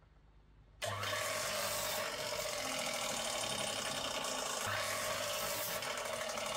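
A tool working pallet wood, a steady rasping noise that starts about a second in and runs on without a break.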